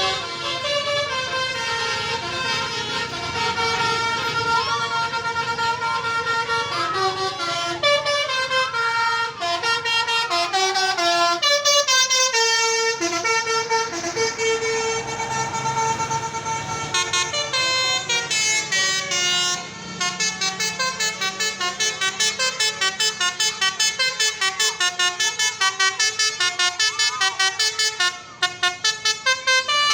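Bus 'telolet' horn, an electrically switched set of air-horn trumpets, playing stepped melodic tunes. From about twenty seconds in it plays rapid, even pulses, several a second.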